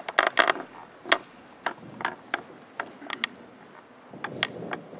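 A dozen or so sharp, irregular clicks and knocks, several crowded together at the start and the rest spaced about a third to half a second apart.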